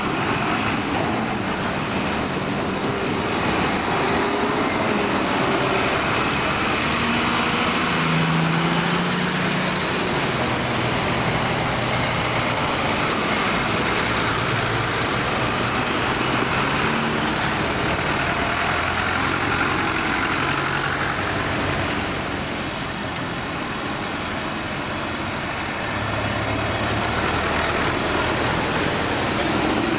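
Diesel farm tractors, among them a John Deere 6530 and a New Holland, driving past one after another in a procession, their engines running steadily with the engine note shifting as each goes by. It is briefly quieter about two-thirds of the way through, in a gap between tractors.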